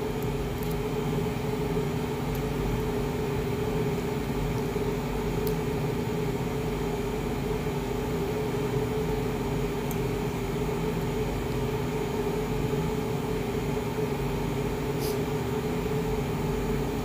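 Steady hum of a running household appliance, with a steady low tone over even noise. A few faint clicks of a fork against a ceramic bowl.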